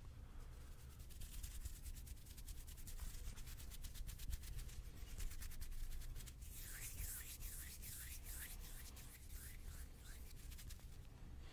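Hands rubbing and brushing close to the microphone, a soft run of fine, quick crackles that turns brighter and scratchier a little past halfway.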